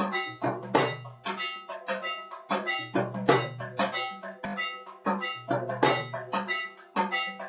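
Temple aarti bells and gongs struck in a fast, steady rhythm, about three strokes a second, each stroke ringing on, over a low hum that comes and goes.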